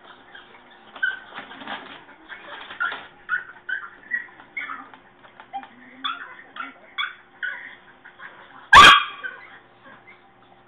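A small dog whimpering in a run of short, high yips, then one loud, sharp bark near the end.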